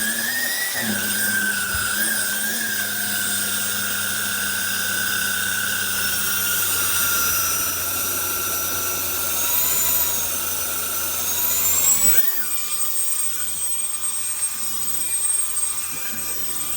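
Cordless stick vacuum cleaner's motor running with a steady high whine whose pitch wavers as it works. About twelve seconds in the lower hum drops away and the tone shifts.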